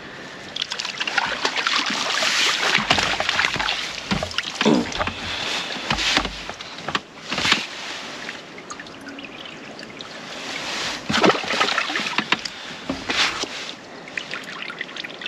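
A fish splashing in a landing net as it is drawn from the lake, with water sloshing and trickling off the net mesh in irregular bursts. Scattered knocks and rustles follow as the net is handled on the bank.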